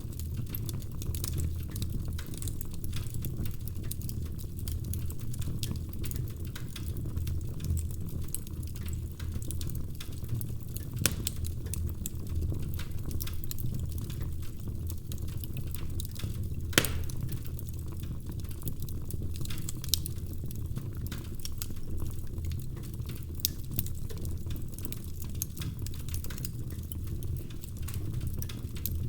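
Burning firewood crackling in a fireplace: a steady low rumble of the fire under a constant run of small crackles. Two sharper pops stand out, one about a third of the way through and a louder one a little past halfway.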